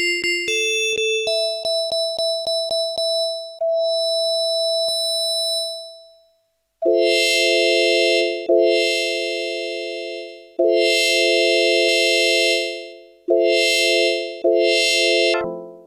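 Yamaha PSS-570 portable keyboard playing a short run of notes, then one held note over a ticking rhythm that fades out. After a brief gap it plays a sustained, bright chord, struck again about five times.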